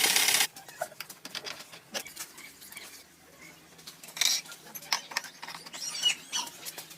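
Car engine running, cut off abruptly about half a second in; then faint scattered clicks, taps and small knocks of handling tools or parts.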